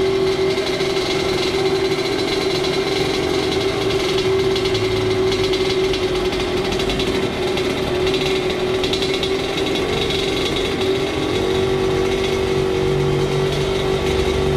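Two-stroke dirt bike engine running steadily, its tone shifting slightly about eleven seconds in.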